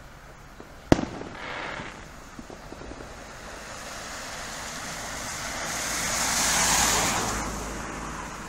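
One sharp firework bang about a second in, then a car driving past on a wet road, its tyre hiss swelling and fading away.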